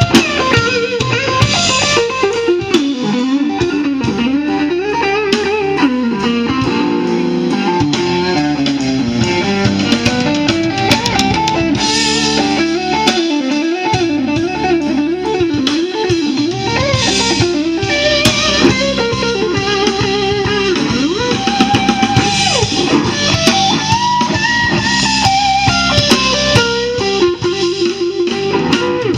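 Live blues band playing, amplified: an electric guitar lead line with bent, wavering notes over a drum kit.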